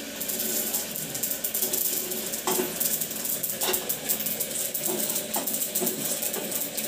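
Black sesame seeds roasting in a frying pan, stirred with a wooden spatula: a steady crackle and rustle of the seeds with the spatula scraping through them, and a couple of louder knocks of the spatula on the pan.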